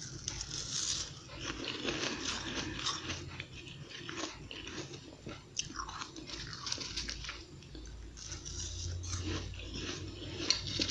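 Close-up chewing and crunching of a mouthful of flaky frozen ice, a dense, irregular run of small crisp crackles.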